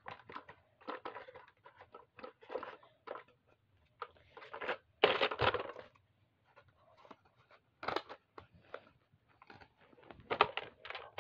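Irregular plastic clicks, rattles and scrapes of a toy motorized dart sniper blaster being worked by hand, its bolt and dart magazine handled to clear a jammed dart and reload, with a louder half-second burst about five seconds in.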